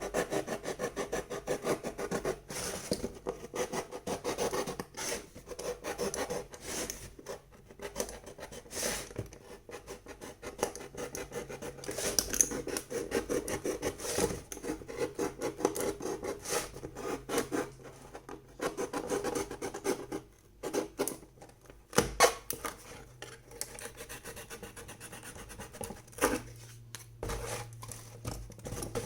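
Box cutter sawing a round hole through the painted wall of a box. It makes quick, repeated scraping strokes with a few short pauses.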